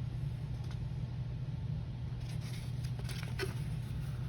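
Steady low background hum, with faint rustling and light taps of paper being handled, mostly in the second half.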